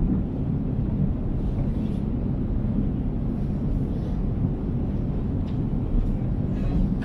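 Long metro escalator running: a steady low rumble from the moving steps and drive, with a few faint clicks.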